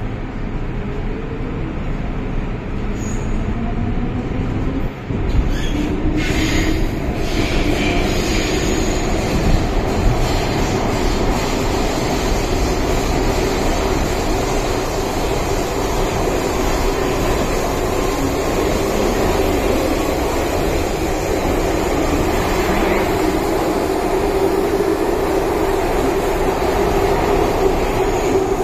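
Interior of an MTR M-Train electric multiple unit accelerating away from a station: the traction motor whine rises in pitch over the first several seconds, then holds at a steady tone over the running noise of the wheels and rails in the tunnel. There is a brief click about five or six seconds in.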